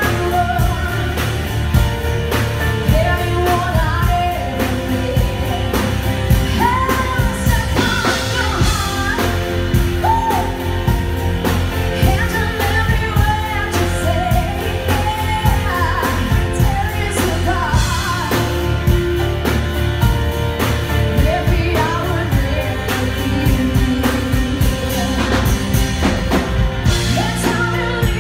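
Female singer performing with a live rock band of drum kit, electric guitar, bass guitar and keyboard, singing a continuous melody over a steady drumbeat.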